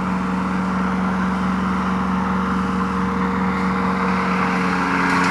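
Heavy engine of the tree-trimming crew's equipment running steadily at a constant speed, getting a little louder near the end.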